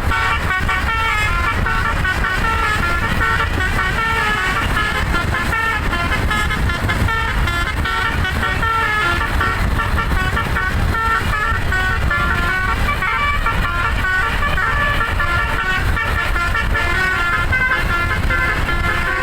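Bus 'telolet' musical air horn, a modular set of several trumpets, playing a continuous melody of quickly changing notes without a break, over a low rumble.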